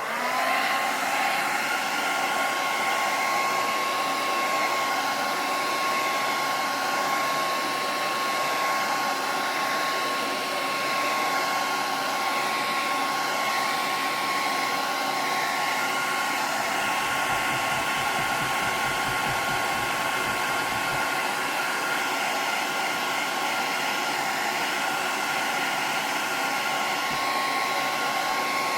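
Hairdryer switching on, its whine rising to pitch within the first half second, then running steadily as it heats old glue on a hardwood floor to soften it.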